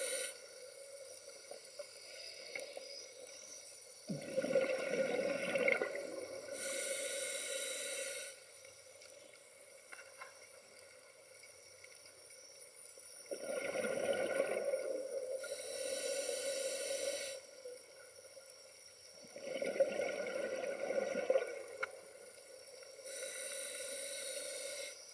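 Scuba diver breathing through a regulator, three slow breaths: each a bubbling exhale followed by a hissing inhale, about every seven to eight seconds.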